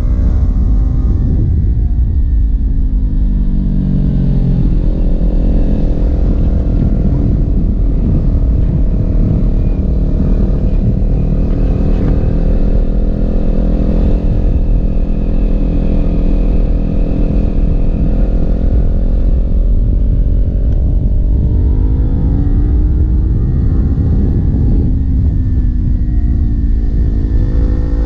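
Kawasaki Ninja 400's parallel-twin engine pulling under way. The revs climb over the first few seconds, hold fairly steady through the middle, ease down about two-thirds through, then climb again near the end, over a heavy low rumble.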